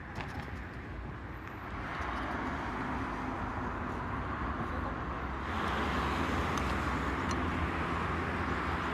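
Road traffic passing: a steady rush of tyre and engine noise that swells about two seconds in and grows louder again past the middle.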